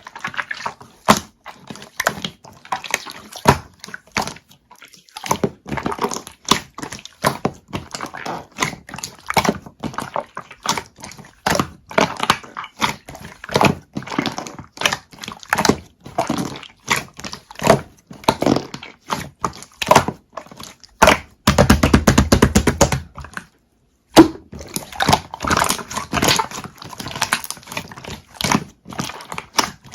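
Clear slime being squished and poked by hand: a continual stream of sticky clicks and pops, with a dense run of them about 21 seconds in and one sharp click just after.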